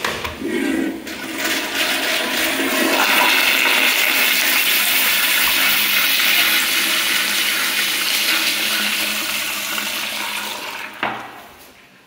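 A flushometer toilet flushing. A loud rush of water into the bowl starts as the handle is pressed, builds over a few seconds, then tapers and cuts off suddenly about eleven seconds in as the valve shuts.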